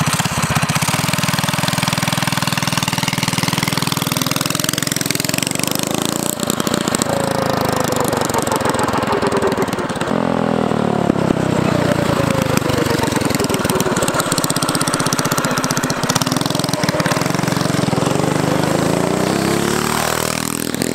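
Go-kart's Tillotson 212 single-cylinder four-stroke engine running and revving up and down as the kart accelerates away and turns back. Its pitch rises and falls several times, then drops sharply as the kart passes close by near the end.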